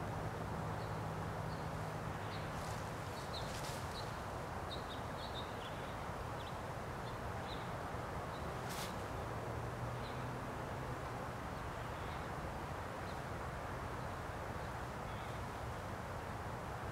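Outdoor ambience: a steady background hiss with a faint low hum, and birds chirping faintly here and there. A few sharp clicks stand out, the clearest about 9 seconds in.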